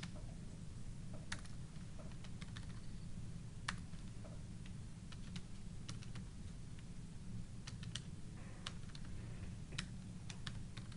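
Computer keyboard keys tapped in short, irregular runs as numbers are entered into a calculator, over a low steady hum.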